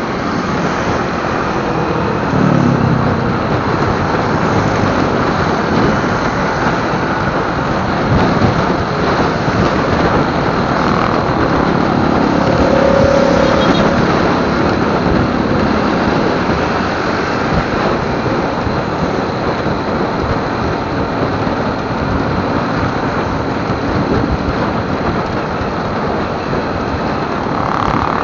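Steady wind rush and rumble on the microphone of a moving motorcycle, with engine and road noise underneath.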